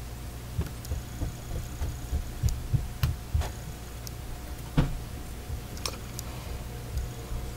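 Hands working an aluminium crochet hook through yarn in single crochet: scattered soft knocks and rubs of handling, the loudest about five seconds in, over a steady low hum.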